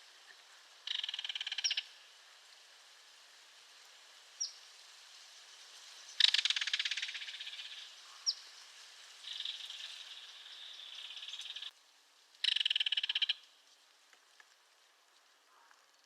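Belted kingfisher giving its dry, rattling call in three bursts, the middle one the longest, with a few short sharp chirps in between.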